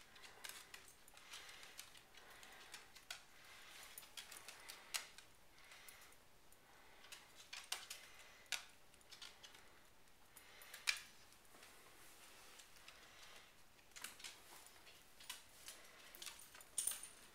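Faint, scattered clicks and light jingling from a dog moving about on a hardwood floor: claws ticking on the boards and the metal tag on its collar clinking, with a few sharper clicks now and then.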